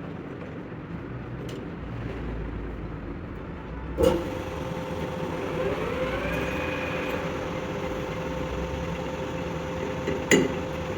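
A sharp clunk about four seconds in, after which a machine runs with a steady hum and a whine that rises and then holds. Another sharp knock comes near the end.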